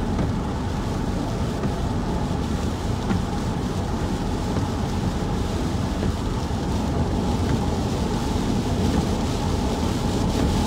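Steady road and engine noise inside the cabin of a moving minivan travelling at speed: an even low rumble with hiss.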